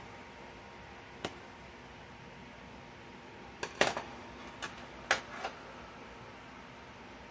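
A kitchen knife and spoon clacking against a metal baking sheet while an acorn squash is cut and handled. There is a single click about a second in, then a quick cluster of sharp clacks around the middle, the loudest, and a few more soon after, over a faint steady room hum.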